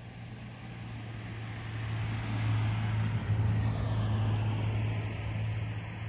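A motor vehicle passing: a steady low hum under a rushing noise that swells about two seconds in and eases off near the end.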